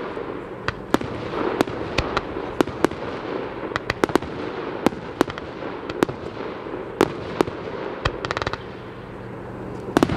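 Fireworks display: aerial shells bursting in an irregular run of sharp bangs, with a quick cluster of crackles about eight and a half seconds in, over steady background noise.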